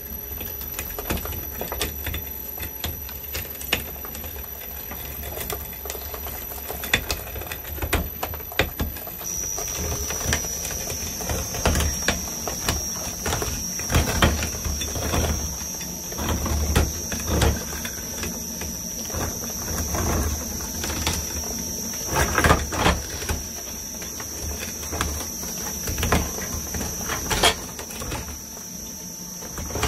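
Twin-shaft shredder running with a low drone, its hooked steel cutters cracking and crunching hard blocks of brick-like material, with many irregular sharp cracks and knocks. A high steady whine comes in about a third of the way through.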